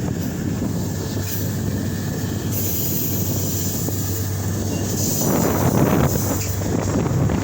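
Wind buffeting the microphone over a steady low rumble, gusting louder about five seconds in.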